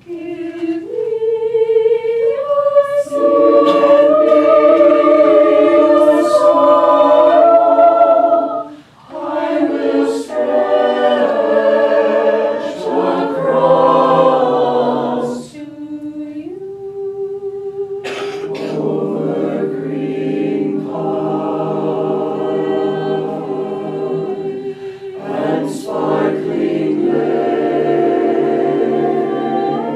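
Mixed choir singing unaccompanied, several parts in held chords. The singing breaks off briefly about nine seconds in; later one part holds a single note alone before the other voices come back in over it.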